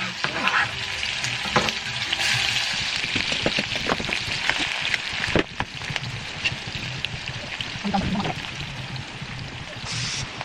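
Potatoes and spices sizzling in hot oil in a kadhai, with a steady hiss and scattered clicks and scrapes as a spoon stirs against the pan.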